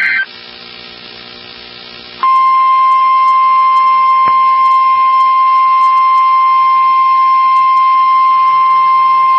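Emergency alert tones. The warbling digital SAME header burst ends just at the start. About two seconds in, a loud, steady single-pitched warning alarm tone of about 1050 Hz (the NOAA Weather Radio alert tone) begins and holds without a break, marking the start of a severe thunderstorm warning.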